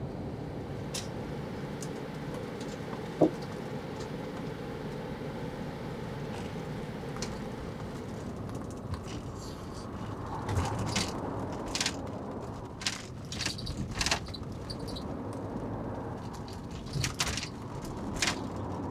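Steady road and engine noise of a double-decker highway bus, heard inside its cabin. A single sharp knock comes about three seconds in, and a run of small clicks and rattles comes in the second half.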